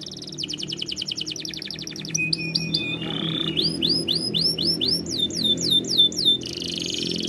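Domestic canary singing a continuous song that switches phrase every second or so. It moves from a fast rattling trill to clipped notes, a buzzy roll, and runs of quick rising, then falling whistled notes.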